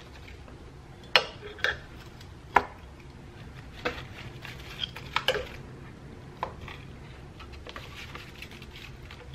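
Metal kitchen tongs clinking and knocking against the slow cooker's crock as beef shanks are turned in seasoning: a handful of short, sharp clinks at irregular intervals.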